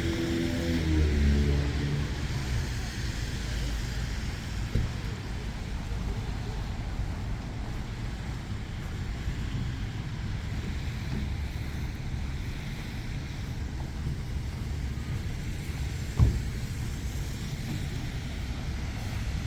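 Road traffic passing along a street in a snowstorm, with wind buffeting the microphone as a steady low rumble. A vehicle's engine hum fades away in the first two seconds, and a single knock sounds about sixteen seconds in.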